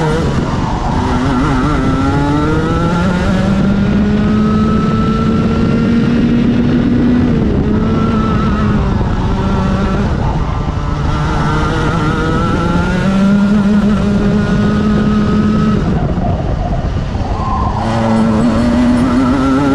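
Racing kart engine at full race pace, heard from on board: its note climbs steadily along the straights and drops sharply as the kart slows for corners, a few times over, with rushing wind noise underneath.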